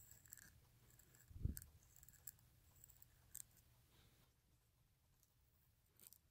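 Faint scratching and ticking of an extra fine crow quill nib on paper as pen strokes are written, pausing for a couple of seconds and starting again near the end, with one low thump about a second and a half in.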